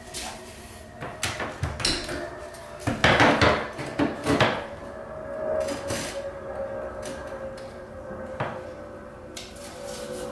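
Hard knocks, taps and short scrapes as a one-piece ceramic shower niche is handled in its tiled wall opening and a spirit level is set against the tile, loudest in a burst about three seconds in, over a faint steady hum.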